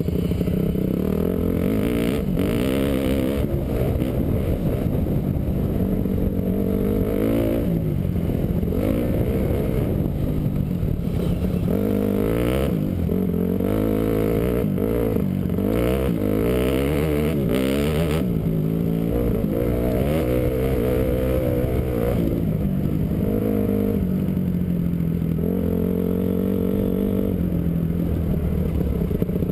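Honda CRF450 four-stroke single-cylinder motocross engine, heard from on board the bike, revving up and falling back again and again as the rider accelerates, shifts and brakes, with knocks and rattle from the bike over the bumps.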